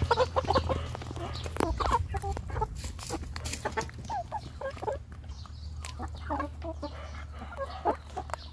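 A flock of chickens clucking in many short, scattered calls while they feed, with sharp clicks among the calls.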